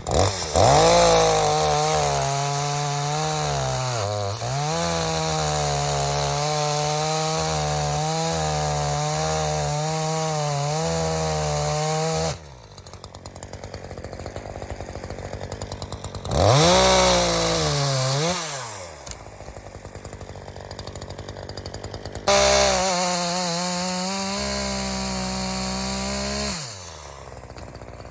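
Echo CS-3510 two-stroke chainsaw revved to full throttle and held for about twelve seconds, its pitch dipping briefly near four seconds in, then dropping to a ticking idle. It is revved twice more, briefly and then for about four seconds, falling back to idle each time.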